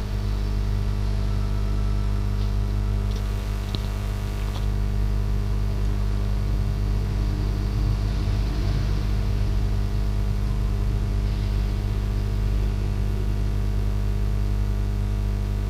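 Steady low hum with a faint hiss that holds unchanged throughout: the background noise of the recording setup.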